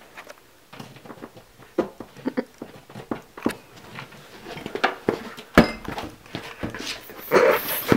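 Scattered soft knocks and rustles as a cat is handled on a couch arm and the camera is moved. One sharp knock comes about five and a half seconds in, and a louder rustling burst near the end.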